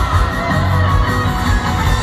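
Live rock band playing through an outdoor amphitheatre's PA, heard from far back on the lawn: guitar over a heavy, steady bass.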